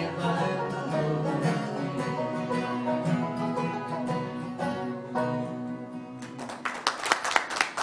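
Acoustic string band with upright bass playing a bluegrass-style tune that ends about six seconds in. Hand clapping breaks out right after.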